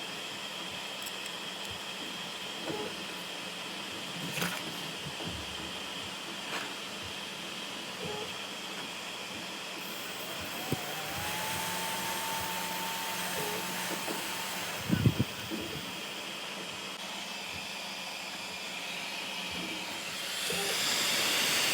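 A small DC motor spinning a 3D-printed fan, with a steady hiss of moving air and a faint hum. About halfway through, a whine rises and then holds for a few seconds, and a sharp knock follows it. The noise grows louder near the end.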